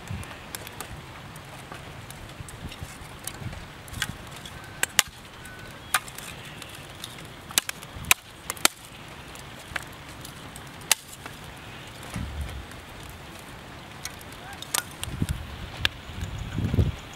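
Small fire crackling in a clay bucket stove, with about a dozen sharp cracks and knocks spread irregularly as the fuel is handled. Low rumbles of wind on the microphone come a little after halfway and again near the end.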